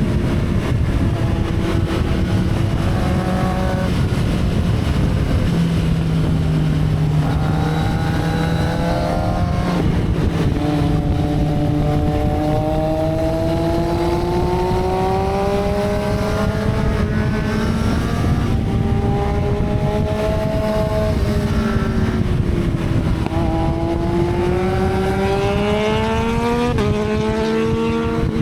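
Motorcycle engine running under way. Its pitch slowly rises and falls with the throttle, with sudden steps at a few points.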